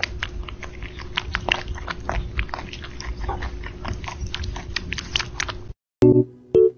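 A cat lapping milk from a bowl: a quick run of wet lapping clicks, about four or five a second. They stop a little before the end, where a few piano notes come in.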